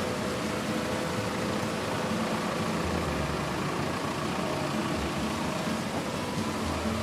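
Steady rain hiss over road traffic, with a vehicle's low engine rumble growing stronger from about three seconds in.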